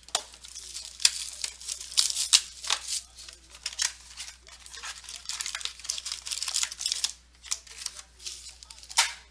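Plastic shrink-wrap being torn off a sealed trading card box and crinkled, in a series of short, sharp crackles and rustles.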